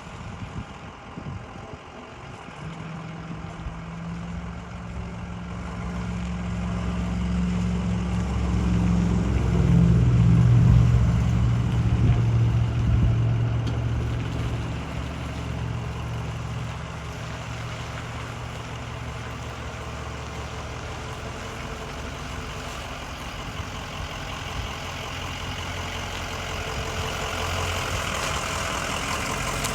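Ambulance engine running as the vehicle is manoeuvred, growing louder to a peak about ten seconds in, then easing back to a steady idle.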